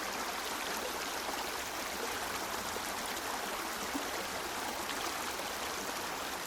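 River water rushing and gurgling in a steady, even flow, with faint scattered splashes.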